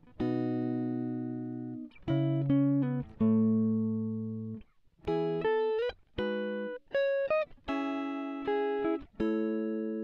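Background music: guitar chords struck one after another, each left to ring and fade, a few with a short slide in pitch.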